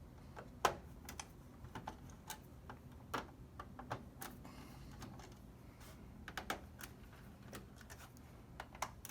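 Faint, irregular light clicks and taps of a Phillips screwdriver working out the screws that hold a PlayStation 4 Slim's power supply.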